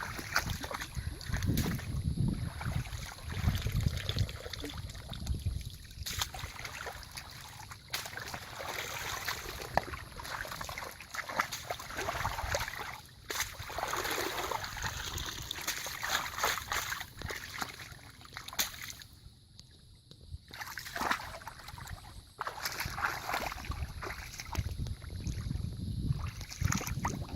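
Water splashing and sloshing in irregular bursts, with scattered knocks and clicks; a low rumble sits under it in the first few seconds and again near the end.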